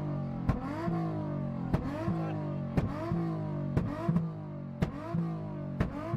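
A car engine revved hard over and over, about once a second. Each cycle starts with a sharp bang and then the engine note rises and holds.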